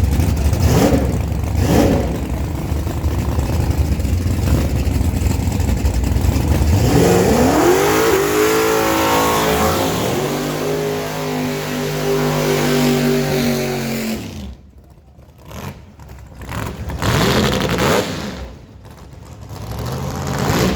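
Drag-racing pickups, a turbocharged Chevy S10 and a ProCharger-supercharged Ford Lightning: two short revs at the line, then a hard launch with engine pitch climbing through the gears, holding high, and falling away as the run passes and fades, with a few short revs after.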